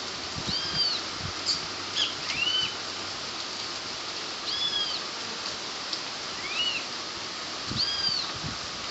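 Steady rain falling, with short, high, arching chirps from a small animal repeated every second or two.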